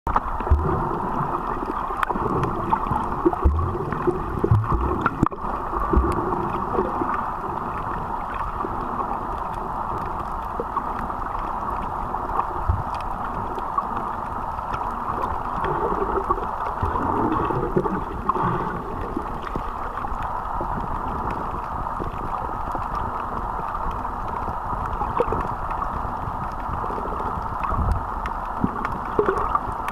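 Underwater sound picked up through a sealed waterproof camera: a steady muffled water rush with gurgles and occasional low thumps, several in the first six seconds and single ones later.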